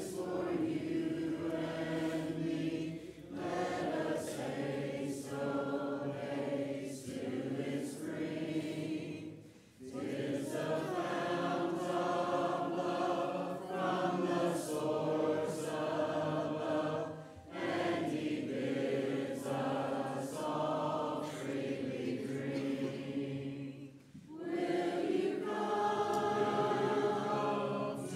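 Congregation of mixed men's and women's voices singing a hymn a cappella, with no instruments; this is the invitation hymn, sung standing. Short breaks between sung lines come roughly every six to eight seconds.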